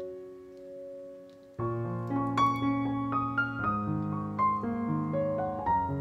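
Background piano music: a held chord fades away, then about one and a half seconds in a new phrase starts with a low bass note under a moving melody.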